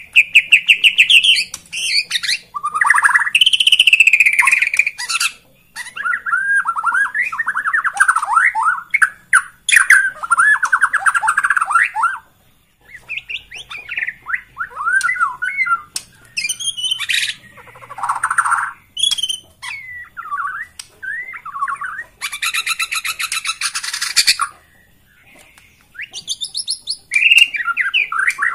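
Bornean white-rumped shama (murai batu) in full, varied song: fast trilled phrases and whistled glides broken by short pauses, with a dense, dry rattle lasting about two seconds near the end.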